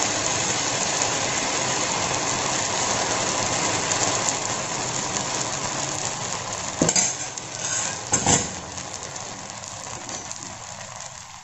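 Semolina batter sizzling on a hot, oiled non-stick tawa as it is ladled on and spread, the sizzle fading from about six seconds in. Two short knocks come near the middle.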